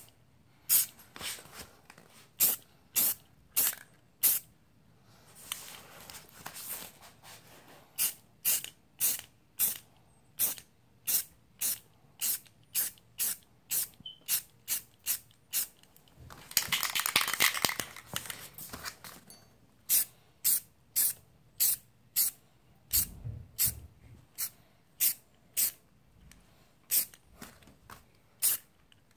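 Aerosol spray-paint can of baby pink paint sprayed in short, quick bursts, about two a second, to lay light coats on a pistol frame. About midway there is one longer spray lasting two or three seconds.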